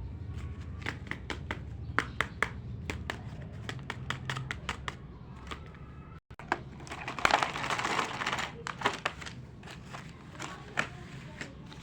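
Small plastic toy pieces clicking and tapping as they are handled, with a plastic bag crinkling for about two seconds past the middle.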